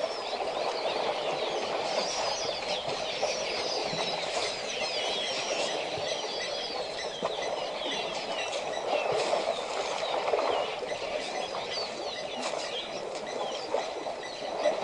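A chorus of many small birds chirping and twittering over one another, over a steady low rushing noise.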